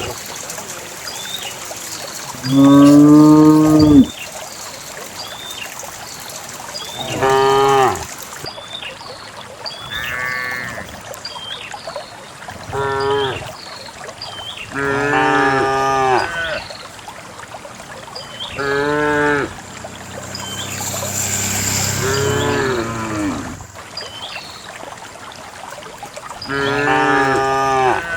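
A herd of cows mooing, about eight separate calls of one to two seconds each. The loudest and lowest comes about three seconds in, and a longer drawn-out moo falls past the middle.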